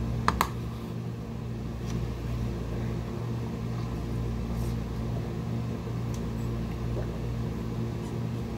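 A steady low hum, with two sharp clicks close together just after the start.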